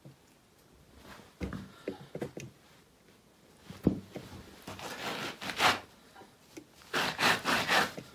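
Footsteps knocking and scraping over an icy, slippery rock floor, with a sharp knock about four seconds in and several rasping scrapes near the end.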